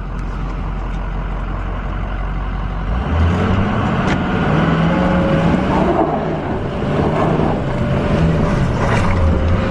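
2005 Ford F350's 6.0 L Power Stroke turbo-diesel V8 running steadily, then revving up about three seconds in as the truck is driven out of snow in two-wheel drive, the engine note rising and falling. A steady whine joins about halfway through.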